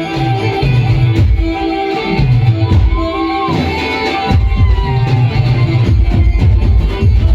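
Nagpuri song music with a steady heavy bass beat and a sustained melody line that slides in pitch about three seconds in.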